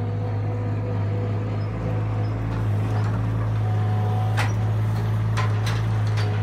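Avant compact loader's engine running steadily under load as it carries a log in with its grapple. In the second half come a few sharp knocks as the log is set down onto the pile.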